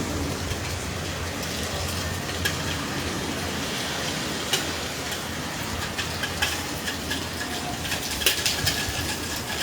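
Hurricane wind and rain: a steady hiss with a low rumble of wind, and scattered sharp taps of drops and debris striking nearby surfaces, more of them near the end.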